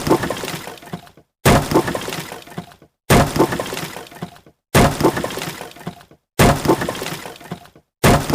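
Wood breaking: a sharp crack followed by about a second of splintering crackle that cuts off abruptly, repeated about every second and a half, six times.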